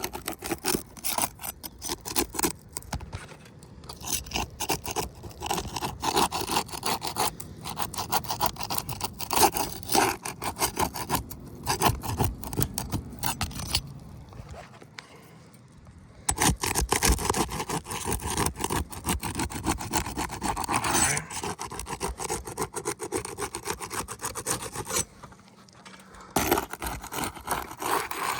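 Repeated scraping and rasping of a tool being worked under an old, brittle asphalt shingle to break its seal, in runs of quick strokes with short pauses about 14 and 25 seconds in.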